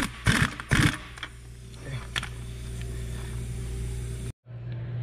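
A power tool spinning a 14 mm nut tight on a rear shock absorber assembly, run in a few short bursts that rise and fall in pitch during the first second, followed by a steady low hum.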